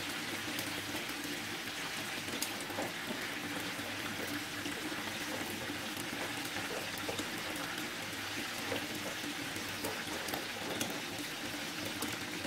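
Tongkol (mackerel tuna) pieces frying in hot oil in a non-stick pan: a steady sizzle with scattered small pops.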